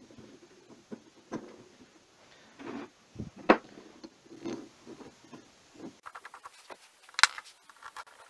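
Metal clinks and knocks as the cast housing of a GAZ-66 power steering pump is handled and bolted together. About six seconds in, a socket wrench's ratchet starts ticking rapidly as a bolt is run in.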